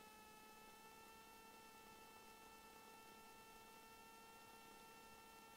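Near silence: a faint steady electrical hum with several thin, high, unchanging tones over a light hiss, the quiet noise floor of the cockpit audio feed between radio calls.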